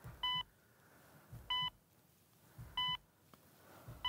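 Hospital heart monitor beeping steadily: a short electronic beep about every 1.3 seconds, three times.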